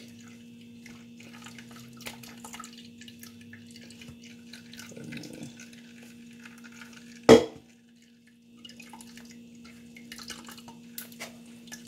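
Juice dripping and trickling from a mesh sieve into a plastic bowl as fruit pulp is pressed through it with a spatula, over a steady low hum. One sharp knock about seven seconds in.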